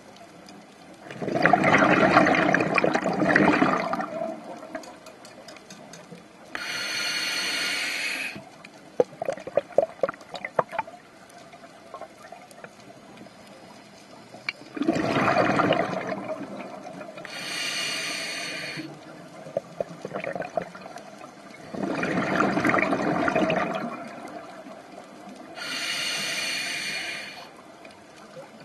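Scuba diver breathing through a regulator underwater, three slow breaths: each a long, rough bubbling exhale followed a few seconds later by a shorter hiss of inhalation. A spell of crackling bubbles follows the first exhale.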